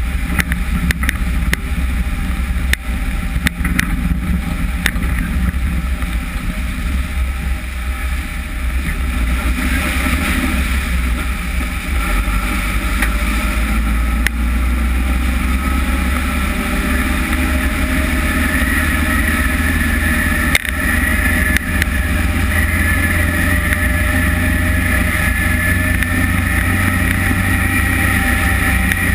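Underbody driving noise of a UAZ Patriot on a dusty road, heard at the front suspension: a steady heavy rumble of tyre, axle and wind on the microphone, with a few sharp ticks in the first five seconds and a high whine that grows stronger from about halfway through.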